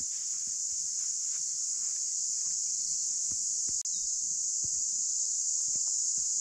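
Steady, high-pitched chorus of insects droning in the pine forest, broken for an instant about two-thirds of the way through.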